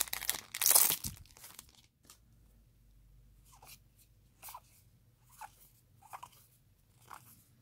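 A foil trading-card booster pack torn open: a loud crinkling rip in about the first second. Then a soft swish about once a second as the cards are slid one behind another.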